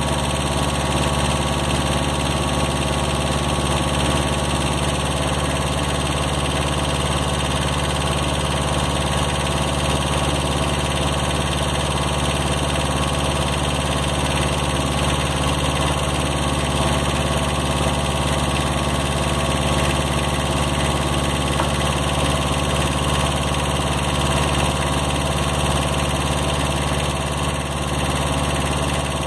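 Kubota B7000 compact tractor's diesel engine idling steadily.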